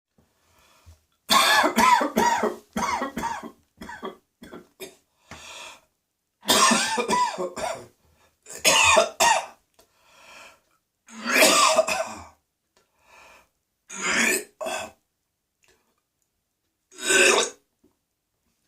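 A person coughing hard in repeated fits with harsh throat clearing, as when food or drink has gone down the wrong way. The coughs come in clusters of several quick hacks separated by a few seconds of silence, with a last single fit near the end.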